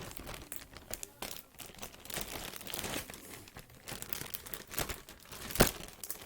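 Crinkling and rustling from handling objects, with scattered small clicks and one sharp click about five and a half seconds in.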